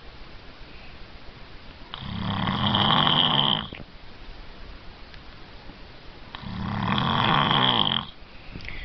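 A man snoring in his sleep: two long snores about four seconds apart, each swelling for about a second and a half and then cutting off sharply, with quiet breathing in between.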